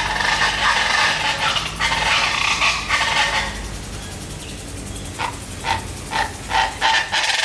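Birds calling loudly: a dense run of overlapping calls for the first three seconds or so, then short single calls repeated about twice a second toward the end.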